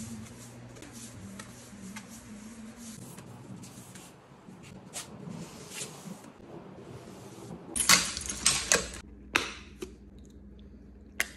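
Hand work on wood: brush strokes and then a hand sanding pad rubbing over the surface, with a short run of louder rubbing strokes about eight seconds in.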